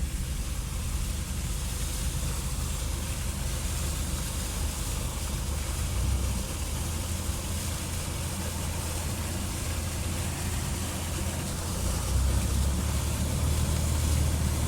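Vehicle engine running low and steady in four-wheel drive low, with a constant hiss of tyres pushing through floodwater; it grows louder about twelve seconds in.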